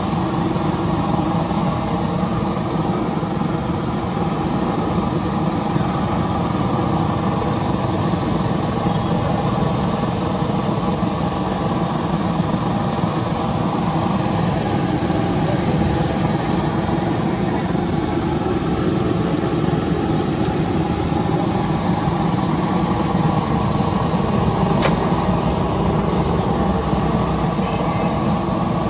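Steady hum of an idling engine over a constant din of street noise, with no break or change.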